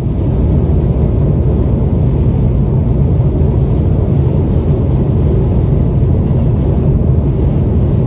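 Steady low rumble of a car travelling at highway speed: road and wind noise.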